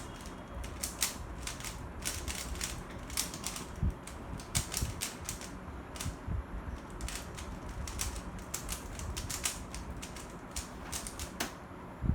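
A 3x3 Rubik's cube being turned fast during a speedsolve, after the cross: rapid, irregular plastic clicks and clacks of the layers turning, in quick flurries.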